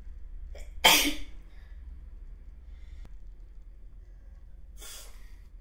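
A woman sneezes once, hard, about a second in, after a short catch of breath just before it. Near the end comes a weaker, shorter breathy sound through the nose or mouth.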